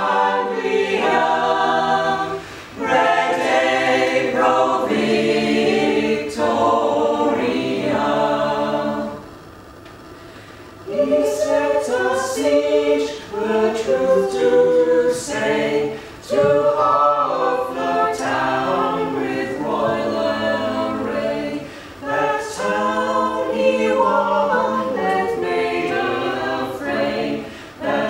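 Mixed choir of men's and women's voices singing a cappella in several parts, with a brief lull between phrases about ten seconds in.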